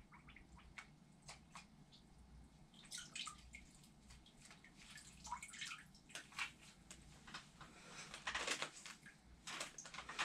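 Water sloshing and dripping in a small plastic tub as a rolled-up, water-activated casting sock is dunked and worked in it, in irregular small splashes with a few louder ones.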